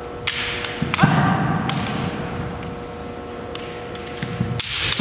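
Kendo sparring: sharp cracks of bamboo shinai striking and stamping feet on a wooden gym floor, three times. The loudest comes about a second in and is followed by about a second of shouted kiai.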